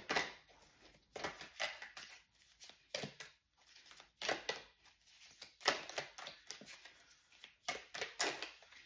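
Tarot cards being handled and shuffled: a string of irregular crisp snaps and rustles.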